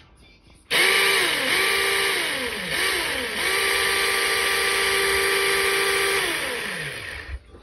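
Cordless electric mini chainsaw (START battery chainsaw) running its chain with no load: the motor starts about a second in with a high whine, dips in speed three times and picks up again, then runs steadily and winds down near the end.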